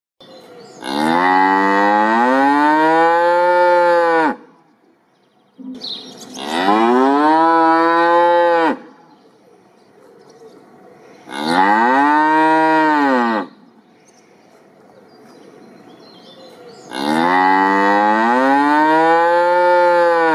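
Cow mooing: four long moos, each lasting two to four seconds, rising and then falling in pitch at the end.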